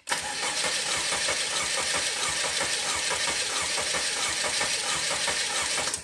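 Mercedes-Benz E300's 2.0-litre M274 four-cylinder engine cranking on the starter for about six seconds without catching, then stopping abruptly. Cylinder one has no compression, its pressure escaping into the crankcase, which marks the cranking cadence.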